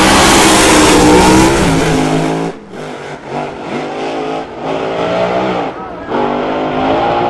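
Two supercharged Pro Mod drag cars launching side by side at full throttle, very loud, the engines rising in pitch with a gear shift about a second and a half in. About two and a half seconds in, the sound drops abruptly to a quieter, more distant engine note that climbs through several upshifts as the cars run down the track.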